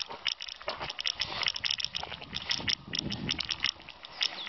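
Footsteps scuffing and crunching on a gritty road surface as a person walks with a puppy on a leash: many short, sharp scrapes a second, uneven in rhythm.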